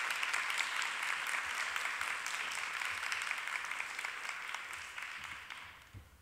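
Audience applauding, a dense patter of many hands clapping that dies away over the last second or so.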